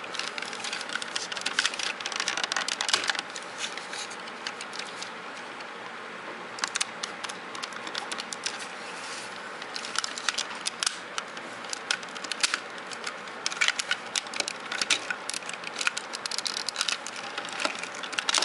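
Hard plastic parts of a Robots in Disguise Optimus Prime toy being handled and pressed together: irregular clicks and rattles as the figure's leg is fitted and locked into its boot piece, with a quieter spell about four to six seconds in.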